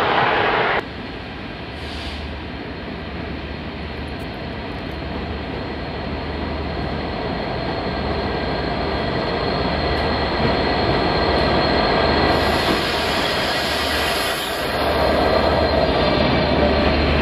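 Class 67 diesel-electric locomotive with a two-stroke V12 engine, running at the platform and then pulling away past close by, its engine note growing louder over the last few seconds. A high hiss joins about twelve seconds in. The first second is a loud train passage that cuts off abruptly.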